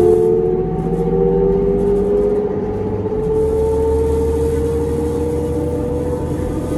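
Interior of a New Flyer D40LF transit bus under way: the Cummins ISL diesel engine rumbling low, with a drivetrain whine that rises slowly in pitch as the bus gathers speed.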